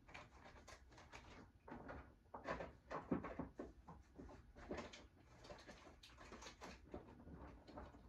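Faint, scattered clicks, knocks and rustles of things being handled and shifted about, like someone rummaging for batteries. They come at an irregular pace, with no steady sound underneath.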